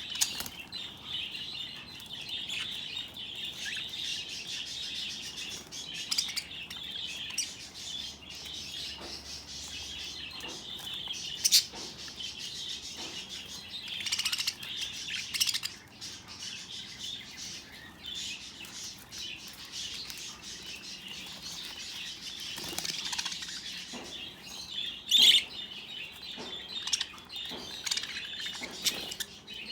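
Budgerigars chattering with a steady stream of chirps and warbles. Now and then there is a brief flurry of wing-flapping as they bathe; the loudest flurry comes a few seconds before the end.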